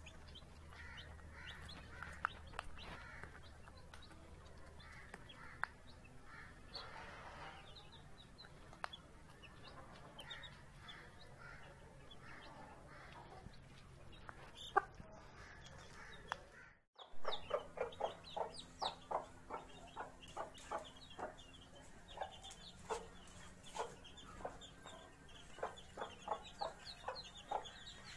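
Mother hen clucking among her newly hatched chicks, with the chicks' high peeps above her. The sound briefly cuts out about 17 seconds in. After that the hen's clucks come louder, as a fast run of short clucks, about two to three a second.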